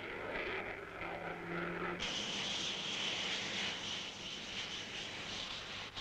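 Jet aircraft engine noise in flight: a steady rushing sound that changes abruptly about two seconds in to a higher, hissing whine.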